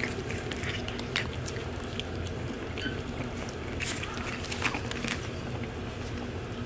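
Shih Tzu puppies eating dry kibble from a food bowl: irregular crunches and clicks of chewing and of kibble moving in the bowl.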